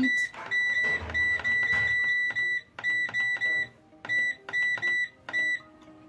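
TCL front-load washing machine's control panel beeping, one short high beep for each press of the Delay button as the delay timer steps up hour by hour to 24 hours. About fifteen beeps come in three quick runs with short pauses between them.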